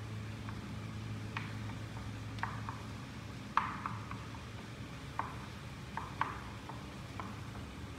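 A utensil tapping and scraping in a frying pan as mince is stirred and squashed, about a dozen irregular light knocks, the loudest about halfway through. A low steady hum runs underneath.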